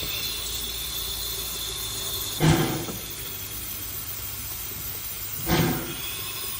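Steam train on the move: a steady hiss, with two short heavy bursts about three seconds apart.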